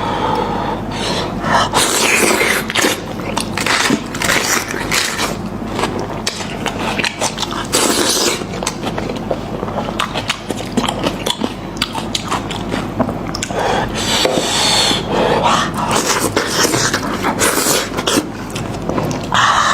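Close-miked eating sounds of someone eating meat from a sheep or goat head: chewing, lip smacks and scraping, with many sharp little clicks throughout.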